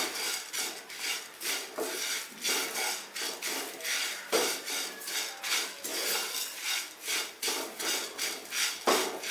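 A spatula stirring and tossing curry leaves, dried red chillies and urad dal as they are dry-roasted in a kadai (wok). The spatula scrapes the pan and the leaves rustle in an even rhythm of about three strokes a second.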